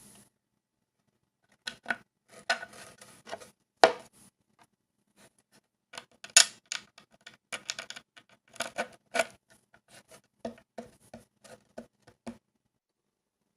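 Irregular small clicks and knocks of skateboard hardware being handled: mounting bolts, nuts and a truck clinking against each other and the deck while a truck is fitted. The strikes come in loose clusters and stop a little after twelve seconds in.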